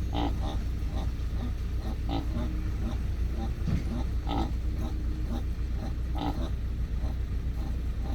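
Heavy diesel machinery running with a steady low rumble, with short grunt-like vocal calls repeating every half second to a second over it.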